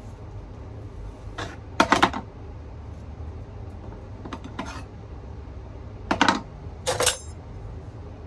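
Kitchen knife and avocado clicking and knocking on a plastic cutting board in four short clusters, the last with a brief metallic ring, over a low steady hum.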